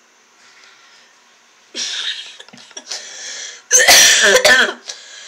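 A man bursting out laughing hard, in loud breathy, explosive bursts, the biggest about four seconds in.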